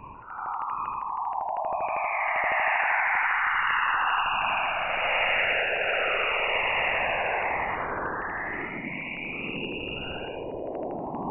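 Jupiter's radio emissions, recorded by Juno's Waves instrument and played as sound: an eerie, hissing band of tones that sweeps down in pitch and back up again, with a fast crackle in the first few seconds.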